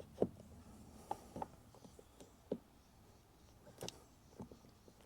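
A few faint, separate plastic clicks and taps as a Furrion wireless side camera is slid into its pre-wired mount on a camper wall.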